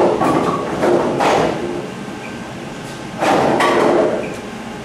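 Bowling ball return bringing a ball back: rumbling and knocking as the ball rolls up and into place in the return, in two loud stretches, one at the start and one about three seconds in.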